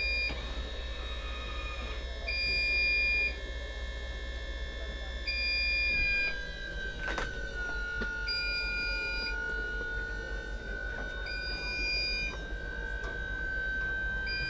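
Linssen Variotop power roof opening: a warning beeper sounds about every three seconds, each beep about a second long, over the steady whine of the roof's drive, which drops slightly in pitch about six seconds in.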